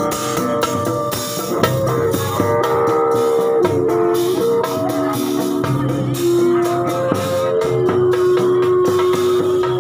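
Live street music: an amplified electric guitar plays a melody of long held and sliding notes, over steady percussion with cymbal hits.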